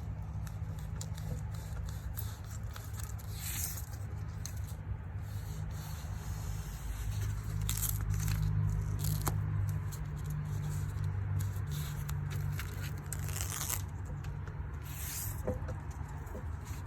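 Backing paper peeling off self-adhesive foam weather stripping as the strip is pressed onto a door frame, in several short tearing rips over a steady low hum.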